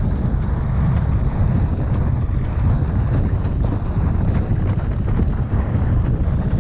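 Strong wind of about 13 to 25 knots buffeting the microphone as a windsurfer sails, a loud, steady, gusty rumble with water rushing beneath it.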